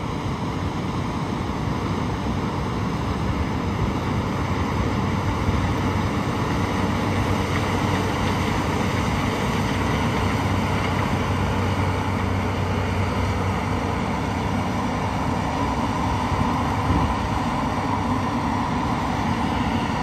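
A steady engine drone with a low hum, unchanging throughout.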